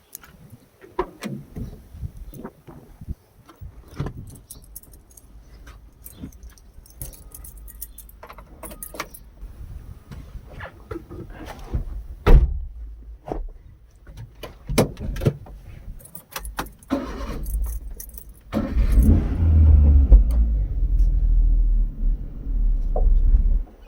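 Keys jangling among scattered clicks and knocks, then about eighteen seconds in a car's engine rumble comes in loud and steady.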